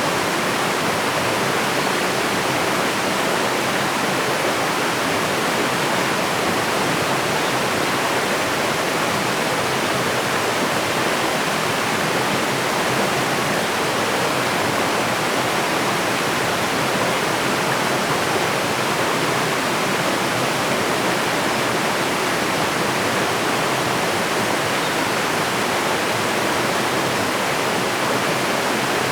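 Waterfall: water pouring steadily, a constant rushing with no breaks or changes.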